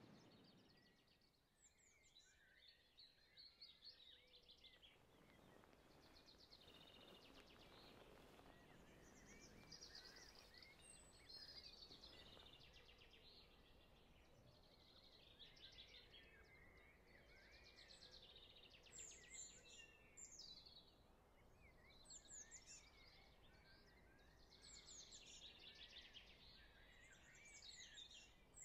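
Faint birdsong: several small birds chirping and trilling over a quiet rural background hum.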